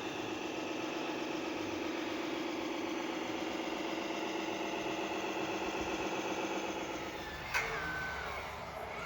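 A radio-controlled model machine's motor running steadily, then dying away about seven seconds in. A sharp click follows, with a brief whistle-like tone.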